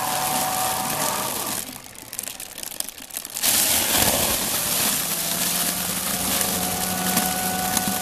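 Battery-powered motor of a Dry Flush portable toilet running its flush cycle, twisting the foil bag liner shut around the water in the bowl. A steady whirring with a whine drops away a little under two seconds in. It comes back about a second and a half later with the rustle of the twisting foil.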